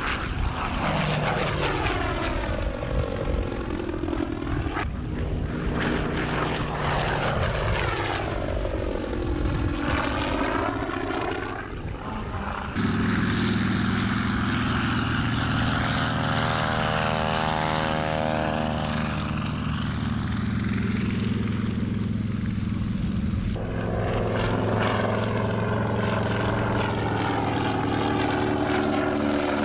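A radial-engined propeller fighter flying low past, its engine note sweeping as it goes by. About thirteen seconds in, this gives way abruptly to a steady, even engine drone: a Grumman TBF Avenger's Wright R-2600 twin-row radial running. Near the end a propeller aircraft flies past again.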